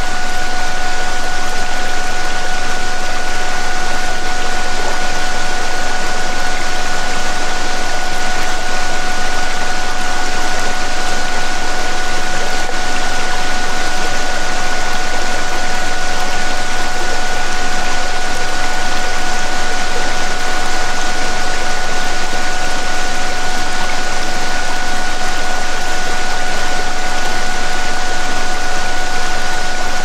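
A steady electronic tone, with a second tone an octave above it, sounds unbroken over the continuous rush of a waterfall recording, with a low steady drone beneath.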